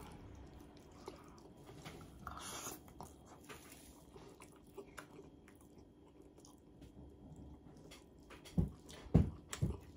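Close chewing and mouth sounds of a person eating rice and fried salmon escabeche by hand, with faint wet clicks. A short wet burst comes about two and a half seconds in, and a few louder lip smacks come near the end as she sucks her fingers.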